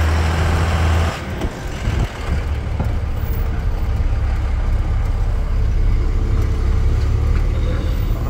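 Street traffic with a heavy low engine hum, cutting off about a second in to the steady low rumble of a vehicle's engine and road noise heard from inside its cab while driving in city traffic.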